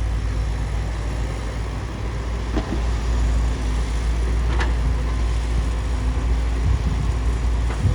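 Bulldozer's diesel engine running steadily with a low drone, with a few short clanks about two and a half, four and a half and eight seconds in.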